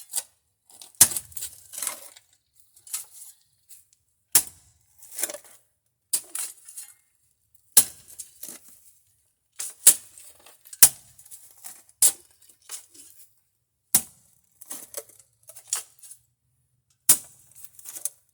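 A metal digging tool striking and scraping into hard, rocky ground: sharp, irregular strikes about every second or two, with loose soil and stones rattling between them.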